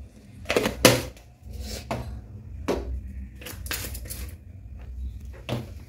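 Irregular clicks and knocks as plastic seasoning containers and their lids are handled: about ten sharp taps, the loudest pair just under a second in, over a steady low hum.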